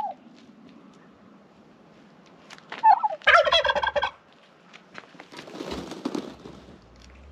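A turkey gobbling once, about three seconds in: one loud, rapidly fluttering call lasting about a second.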